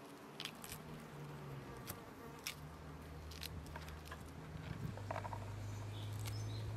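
Fresh fava bean pods being split open by hand, with scattered small snaps and clicks as the beans are pressed out and drop onto a wooden tray. A steady low hum runs underneath, louder from about five seconds in.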